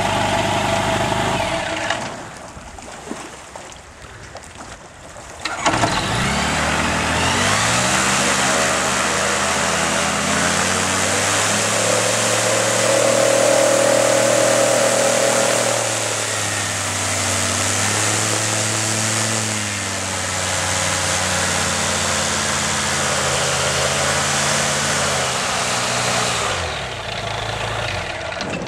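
Light aircraft's Rotax flat-four engine and propeller at low power, then opened up sharply about six seconds in. It runs at high power for about twenty seconds, with small dips in pitch, as the floatplane drives out of the water and up the grass bank on the wheels in its floats, then is throttled back near the end.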